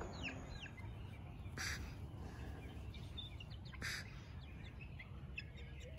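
Young chicks peeping faintly: many short, high, falling chirps, with two brief rustling noises about one and a half and four seconds in.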